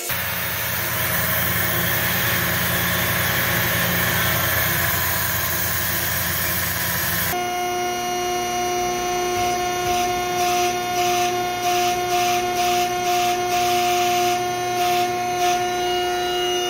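A CNC cutting table cutting out a sheet-metal bracket: a steady hiss over a low hum. About seven seconds in this cuts off and gives way to steady humming tones from a shop bending machine, with a rhythmic pulsing during the second half as the bracket is bent.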